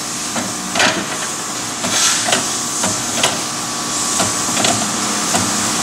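Clicks and metal clunks from a seat-back assembly pallet as its seat-back fixture is tilted through its angle positions and the handle-operated locking pins are worked: about nine irregular knocks over a steady hiss and faint hum.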